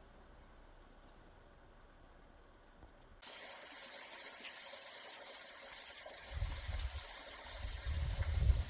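Faint hum, then about three seconds in the sound of a flowing creek sets in abruptly as a steady rush of water, joined by low rumbling from about six seconds in.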